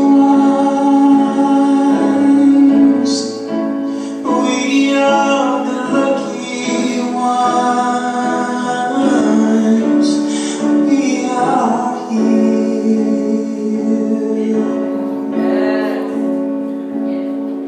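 A song with a woman singing long held notes over keyboard accompaniment.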